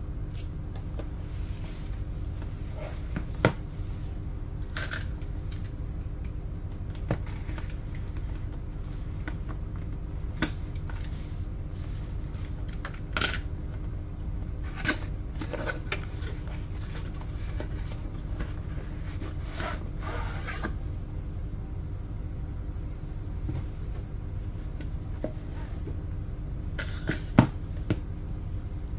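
Hands handling a white cardboard product box and sliding a zippered hard-shell carrying case out of it: scattered light taps, rubs and scrapes of cardboard, with a few sharp knocks, the loudest near the end. A steady low hum runs underneath.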